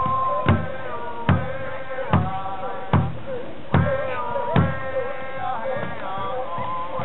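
Native American drum group singing a chant over a large hand drum struck in a steady beat, about one stroke every 0.8 seconds; the strong drum strokes fall away about two-thirds of the way through while the singing goes on.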